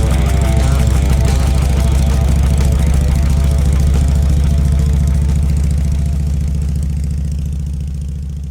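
Harley-Davidson V-twin motorcycle engine idling with a steady low, pulsing beat, fading out near the end.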